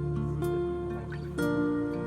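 Background music: soft instrumental with guitar notes, a new chord coming in about a second and a half in.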